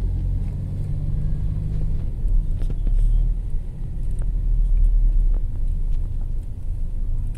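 Low, steady rumble of a car on the move: engine and road noise.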